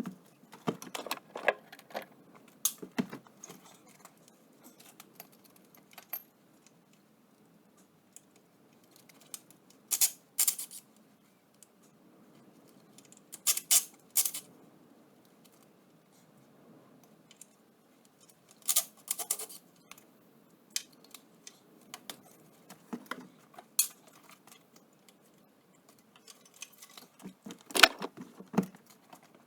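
Loose metal tools and parts clinking and rattling in short spells of clatter with quiet gaps between, the loudest near the end.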